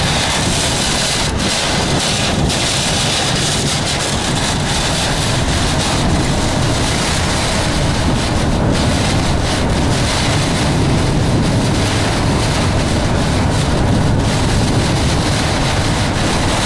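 Thunderstorm wind and driving rain beating on a moving vehicle, heard from inside the cabin as a loud, steady rush of noise.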